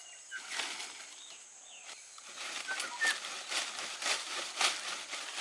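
Freshly cut cinnamon stems and leaves rustling and scraping as they are handled and gathered into a bundle, in irregular strokes that come thicker after about two seconds. A faint steady high insect buzz runs underneath.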